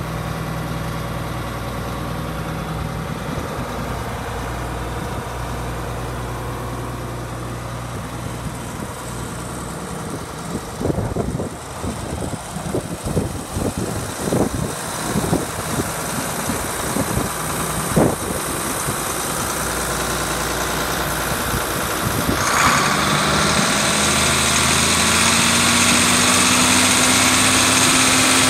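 John Deere 4440's turbocharged six-cylinder diesel engine idling steadily. A run of irregular knocks and clicks comes near the middle. About two-thirds through, the engine sound grows louder and brighter, its pitch rising slightly.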